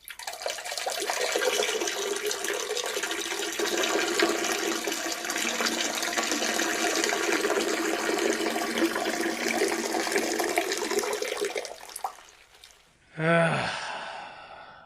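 Peeing sound effect: a steady stream of urine splashing into toilet water for about twelve seconds, then tapering off. Near the end, a short voice with a falling pitch, like a sigh of relief.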